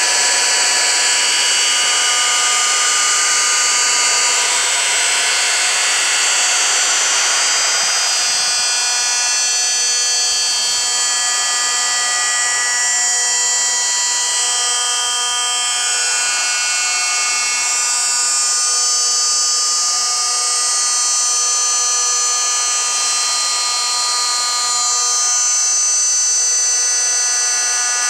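Loud, harsh electronic drone made of many held high tones stacked over a hiss. It keeps going without a break, with single tones fading in and out.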